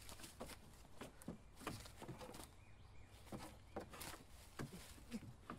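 Near silence outdoors in woodland: faint, irregular clicks and rustles over a low background hum.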